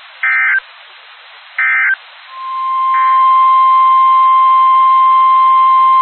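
Two short, warbly SAME digital data bursts from NOAA Weather Radio, the end-of-message code closing the previous warning. About two seconds in, the weather radio's 1050 Hz warning alarm tone fades in, reaches full loudness within a second and holds as one steady loud tone, announcing the next warning.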